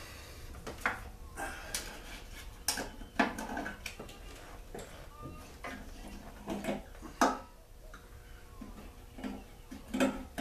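Scattered clinks, clicks and knocks of hands handling metal parts of a small two-stroke generator, with the loudest knocks about three seconds in and seven seconds in; its fuel tank cap is being taken off.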